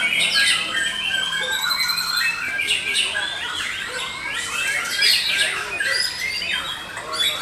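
Several caged white-rumped shamas (murai batu) singing at once in competition: a dense, unbroken tangle of rapid whistles, trills and sliding notes.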